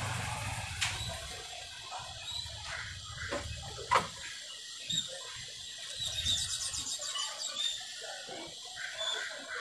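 Fine charcoal ash shaken through a metal mesh strainer into a plastic tub with a soft hiss, then a few sharp taps, then hands scooping and squeezing dusty ash-and-sand mix with an irregular rustle.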